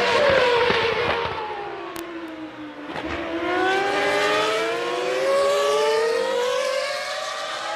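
1999 Formula One car's 3.0-litre V10 engine at racing revs. Its note drops for about two and a half seconds, then climbs again from about three seconds in as the car accelerates, and holds high.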